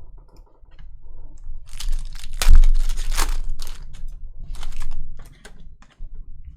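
Trading-card pack wrappers being torn open and crinkled by hand, in two bursts of crackling, the loudest about two and a half seconds in.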